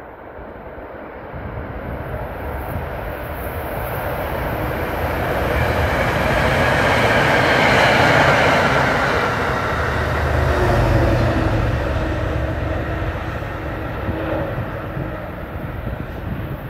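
MBTA commuter rail train passing at speed, its wheels rumbling on the rails. The rumble builds to its loudest about halfway through and then fades slowly as the coaches pass and draw away.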